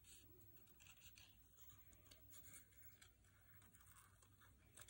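Faint, irregular snips and paper rustle of small scissors cutting out a paper cutout.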